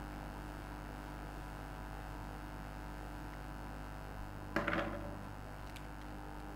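Steady low electrical hum under quiet room tone, with one short scuffing noise about four and a half seconds in.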